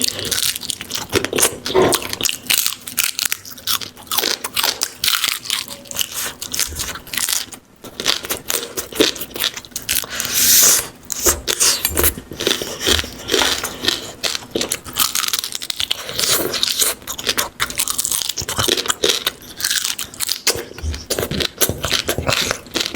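Close-up crunching and chewing as someone bites into crisp food, a dense irregular run of crunches with a louder burst of crackling about halfway through.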